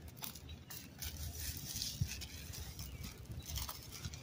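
Rustling and handling noise as a skateboard deck is turned over and lifted, with small clicks and one sharp knock about two seconds in.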